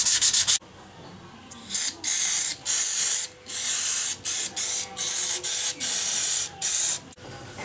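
Aerosol brake parts cleaner sprayed into a motorcycle's rear brake drum in a series of short hissing bursts, about eight, with brief pauses between them. Before that, a moment of rapid hand-sanding strokes on the drum surface.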